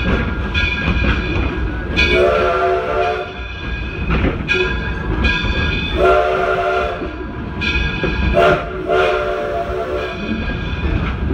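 Steam locomotive's chime whistle sounding four blasts, long, long, short, long, the standard signal for approaching a grade crossing, over the steady rumble and clatter of the moving train.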